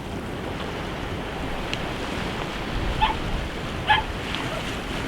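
Sea waves washing against the rocks with wind buffeting the microphone, and two short, sharp calls about three and four seconds in.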